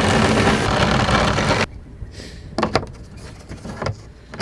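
A cordless drill spinning a sanding drum against the edge of a hole cut through a van's sheet-metal side, grinding it clean. It stops suddenly about a second and a half in, and a few light knocks and clicks follow.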